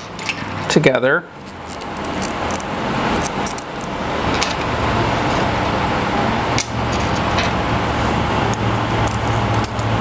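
Small screws and metal fence parts clicking and clinking as they are handled and fitted together, over a steady machine-like noise with a low hum that swells over the first few seconds and then holds.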